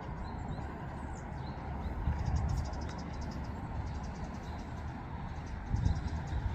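Outdoor ambience: a steady low rumble, with rapid high-pitched trills twice and a few short high chirps.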